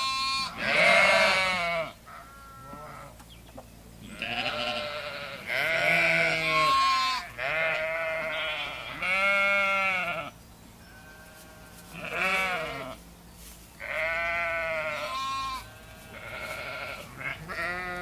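Sheep in a flock bleating over and over, about eight quavering calls from several animals, some higher and some lower in pitch, now and then overlapping.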